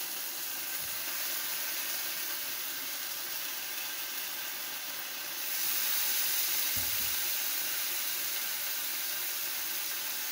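Chopped vegetables with chilli and soy sauce sizzling in a non-stick frying pan on a gas hob, a steady hiss that grows louder about halfway through.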